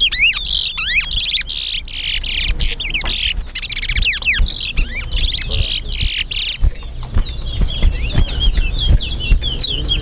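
Caged towa-towa (large-billed seed finch) singing competition song: fast runs of whistled, gliding notes. They come densely for the first six or so seconds, then thin out into sparser chirps.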